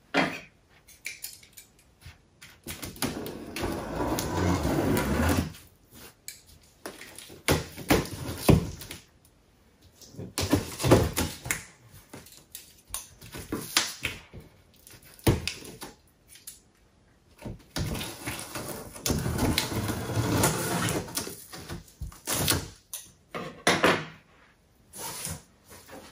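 Packing tape being slit with scissors along the top seam of a large double-corrugated cardboard box, with the cardboard flaps rustling and knocking as they are handled. The sound comes in several scraping stretches of a second or two, with sharp knocks in between.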